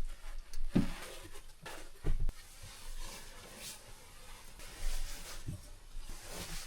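A few light knocks and soft rustling, spaced a second or more apart: someone moving about and settling into a sleeping bag in a small enclosed space.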